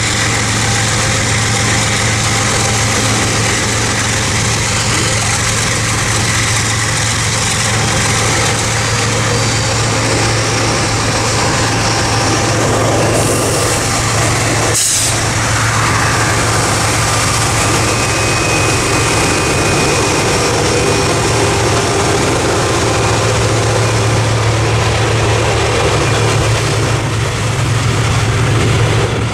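GE ES43BBi diesel freight locomotives running under power, mixed with the steady road and wind rumble of a car driving alongside them. There is a sharp knock about fifteen seconds in.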